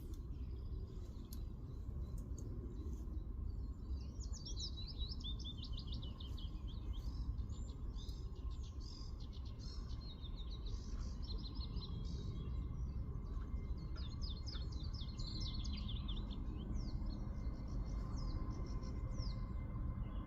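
A songbird singing in quick, repeated twittering phrases, starting about four seconds in, over a steady low background rumble.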